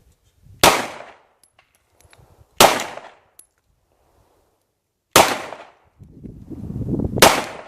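Four single shots from a Glock pistol, fired slowly about two to two and a half seconds apart, each a sharp crack with a short echo.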